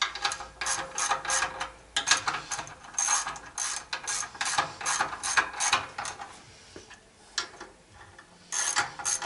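Hand ratchet with a 14 mm socket clicking stroke after stroke in quick runs as it runs down the nuts on a connecting-rod big-end cap. The clicking stops for about two seconds near the end, then starts again.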